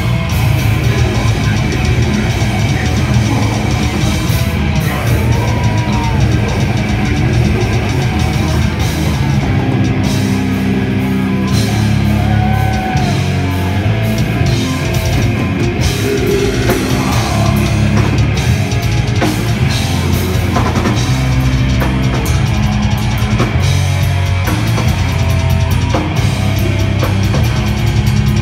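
Live metal band playing loud and without a break: heavily distorted electric guitars, bass guitar and a drum kit.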